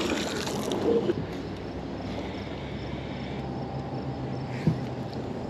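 Magnet-fishing rope being hauled back in by hand after a throw, over a faint steady low hum, with a single knock about four and a half seconds in.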